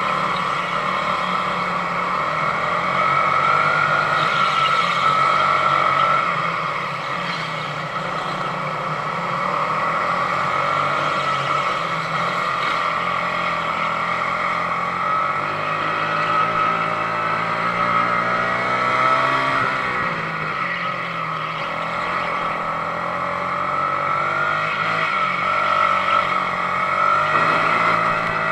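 Sodi RX250 rental go-kart engine, 22 hp, running hard under race throttle, heard from a camera mounted on the kart. Its pitch rises and falls as the driver accelerates out of corners and lifts for them, with the clearest swing about two-thirds of the way through.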